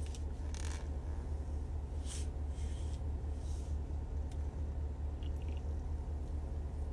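Steady low background hum with a faint hiss, and a few faint, brief soft rustles.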